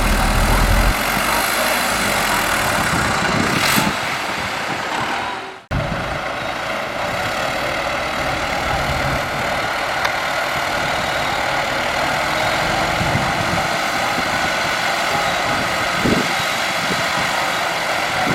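Heavy diesel engine of earthmoving machinery running steadily. The sound cuts out for a moment about five and a half seconds in, then resumes.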